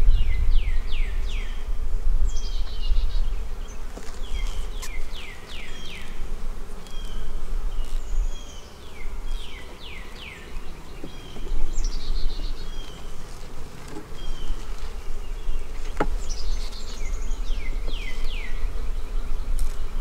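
Honeybee colony humming steadily around an opened hive. Short runs of high, falling whistled notes recur over it, and there is one sharp click about three-quarters of the way through.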